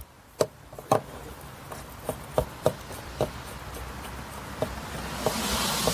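Phillips screwdriver driving a screw to fasten the plastic seat handle to the seat side panel: a string of light, irregular clicks and knocks. A hiss rises near the end.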